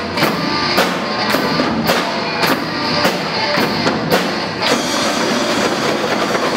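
Live rock band with drum kit and marching snare drums playing a steady beat, just under two strokes a second. About two-thirds of the way through the beat stops and a dense, even noise takes over.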